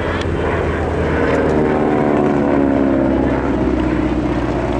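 Radial engine and propeller of a Val dive bomber flying low past. The sound grows to its loudest in the middle, and its pitch falls as the plane goes by.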